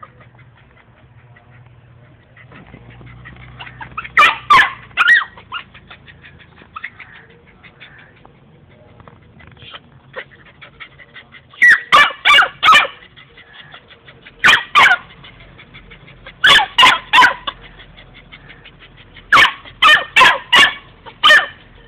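Labrador puppy barking in sharp, loud bursts of two to five quick barks, about five bursts with short pauses between.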